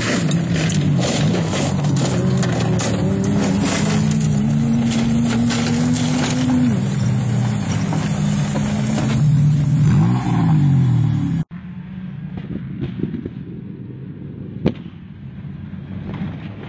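Off-road race buggy engine revving hard on a dirt track, its pitch climbing and dropping through the gears. About two-thirds of the way through, the sound cuts abruptly to a quieter, more distant engine, with a single sharp knock near the end.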